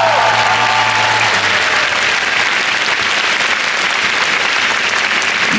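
Concert audience applauding loudly as the band's final held chord dies away in the first second or so.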